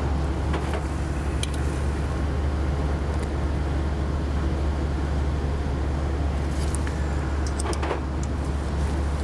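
A steady low machine hum, with a few light metallic clicks and taps as the jack screws on a tilting four-jaw grinder chuck are loosened and tightened.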